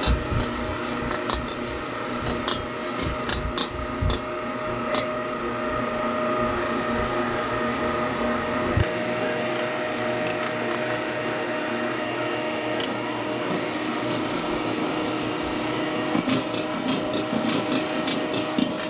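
Egg, pork and rice being stir-fried in a wok: a metal spatula scraping and tapping against the wok, the taps thickest near the start and again near the end, over a steady hum with a few held tones from the stall's cooking equipment.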